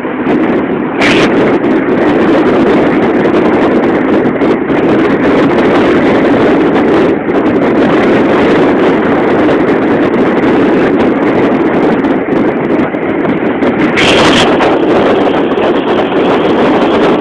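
Steady rushing noise of a car driving along, with wind buffeting the microphone. Two brief louder hisses break through, one about a second in and one near the end.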